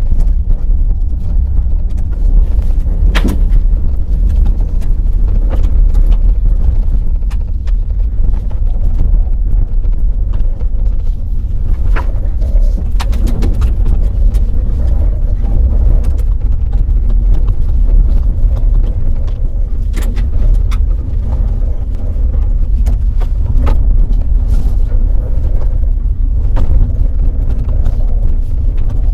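Ford F-150 Lightning electric pickup driving: a steady low rumble of tyre and wind noise with no engine note, broken by a few short sharp knocks.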